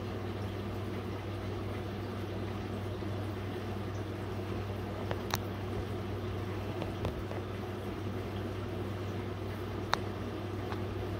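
Small aquarium filter running: a steady low hum with a constant trickle of water. Two light clicks break in, about halfway through and near the end.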